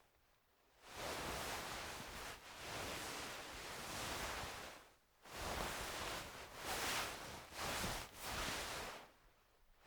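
Clothing fabric rustling and swishing as it is moved: one long stretch of about four seconds, then several shorter swishes in quick succession, with brief pauses between.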